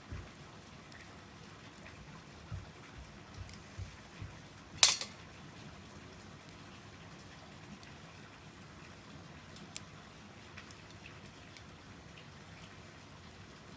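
Wood fire burning in a small wood-burning camp stove, a faint hiss with sparse crackles and ticks. About five seconds in comes one loud, sharp crack, just after a few dull low thumps.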